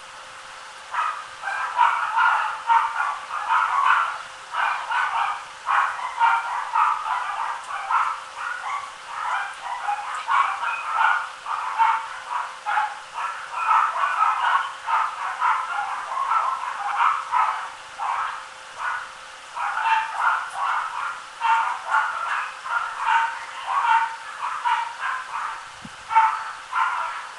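Mixed shih tzu and Japanese spitz puppies yapping, a rapid run of short, high-pitched yips, several a second, that starts about a second in and keeps going.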